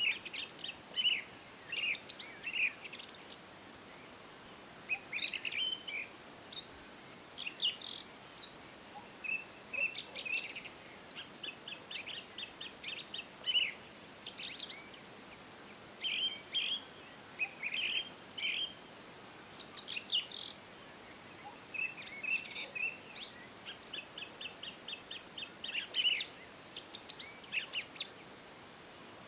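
Songbirds chirping and singing, with short phrases and rapid trills of repeated notes following each other throughout, over a faint steady hiss.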